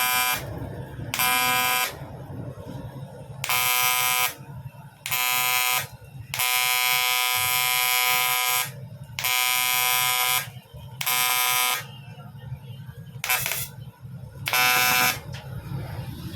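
TIG welding arc buzzing in short bursts on a CT100 motorcycle's aluminium engine block. There are about nine strikes of the arc, most under a second, one of about two seconds near the middle, with a low rumble between them.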